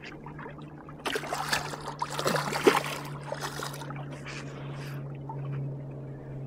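Muskie splashing at the water's surface beside an aluminum boat, in bursts about a second in and again between two and three seconds, then smaller splashes. Under it, the steady low hum of the idling boat motor.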